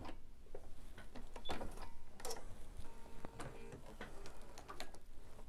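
Light clicks and fabric rustling at a Bernina 770 QE sewing machine as the stitched fabric is drawn out from under the presser foot, with a short mechanical whir about three seconds in.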